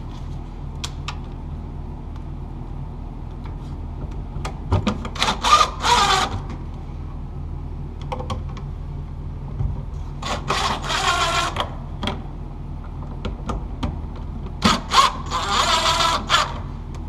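A power drill/driver runs in three short bursts, each a couple of seconds long, with small clicks of handling between them over a steady low hum.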